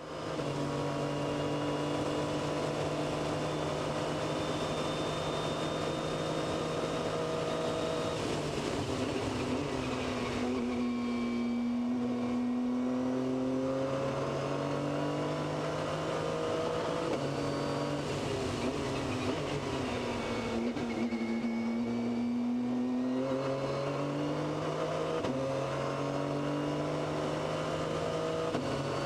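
Onboard sound of an LMP2 prototype race car at speed, its engine held high on a straight, then dropping through downshifts under braking about eight seconds in and again around twenty seconds, each time climbing back through the gears.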